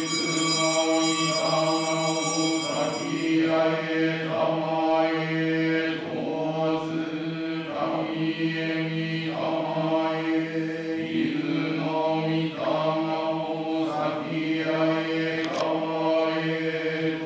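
A male voice chants a Shinto prayer (norito) on one steady pitch, with slow, drawn-out syllables and no breaks.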